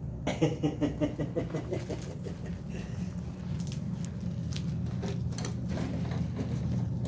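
Caique parrot scuffling and rustling under a hat, with scattered clicks and patters. A quick run of pulsed sounds, about five a second, fades out in the first two seconds.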